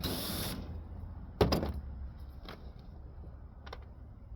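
Knocks and clicks from working on a central air conditioner's sheet-metal cabinet, with one sharp clank about a second and a half in and a few lighter clicks after. It opens with a brief hissing burst.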